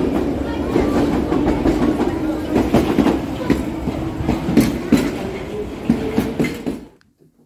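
London Underground Piccadilly line train (1973 Stock) pulling out of the platform: a steady rumble with irregular sharp clicks and clatter of the wheels over the track. It cuts off abruptly near the end.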